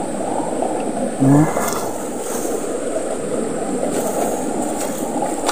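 Shallow, fast-flowing stream rushing steadily over stones and leaves, with a hand stirring the wet leaves and a few faint knocks and rustles.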